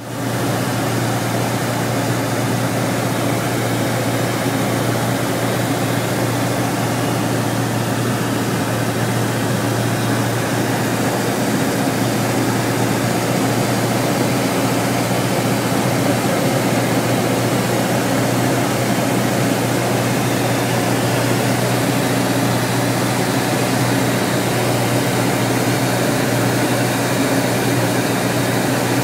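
Robin DR400's four-cylinder Lycoming engine and propeller running steadily in flight, a constant loud drone with a deep hum, heard inside the cabin.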